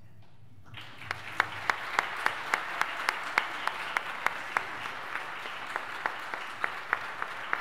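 Audience applauding, starting about a second in, with loud, evenly spaced claps from close by, about three a second, standing out over the crowd's clapping.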